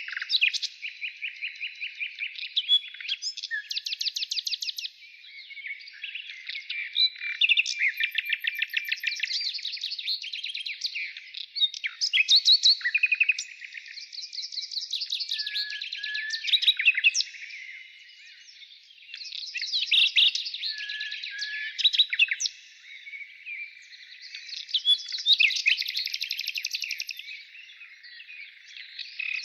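Songbirds singing: fast, high trills and chirps in phrases a few seconds long, with short breaks between them.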